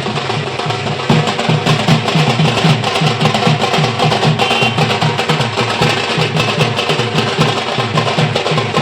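Drumming with a fast, even beat of about five strokes a second, with sharper clicking strokes layered over it.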